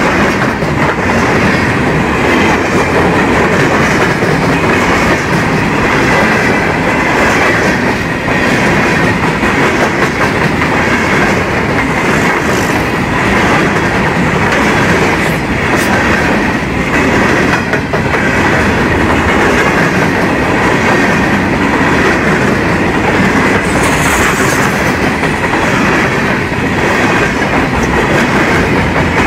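Freight train of steel gondola cars rolling past at about 60 km/h, less than a metre away. The wheels on the rails make a loud, steady rumble, with clacks as they pass over rail joints.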